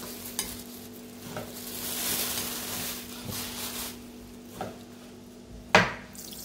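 Chef's knife sawing through a seared steak on a wooden cutting board, a scraping hiss through the middle, with small taps of knife and fork and one sharp knock on the board near the end.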